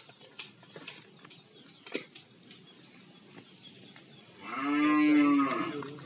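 A cow mooing once near the end: a single drawn-out call of about a second and a half that rises and falls. Scattered faint clicks come before it.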